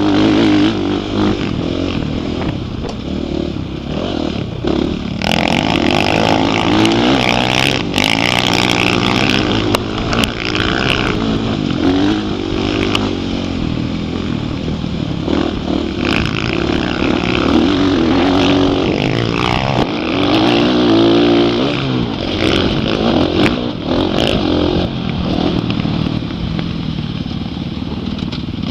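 Dirt bike engine under riding load, its pitch rising and falling as the throttle opens and closes through the turns, with rushing noise over it.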